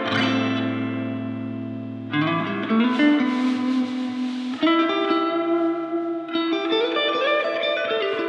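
2000 American Fender Telecaster played through a miked Fender combo amp: chords left to ring, changing about two, four and a half and six and a half seconds in, with notes sliding up in pitch into the new chords.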